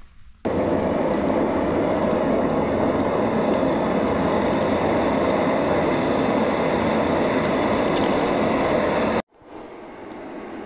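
Water pouring in a steady stream from a plastic bike bottle into a cooking pot of ragú, adding the water for the rice. It starts suddenly just after the beginning and cuts off abruptly about a second and a half before the end.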